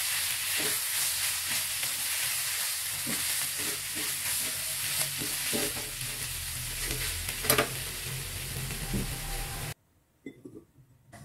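Green beans and tempe sizzling in a hot nonstick pan while a spatula stirs and tosses them, with steady frying hiss and scattered scrapes and clicks of the spatula against the pan. The sizzling cuts off suddenly near the end, leaving only a few faint taps.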